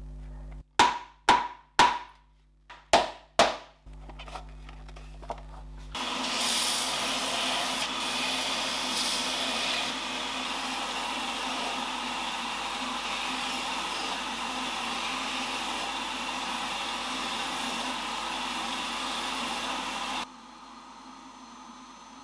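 Five sharp taps in quick succession, then a small power tool runs with a steady rushing noise for about fourteen seconds and cuts off suddenly.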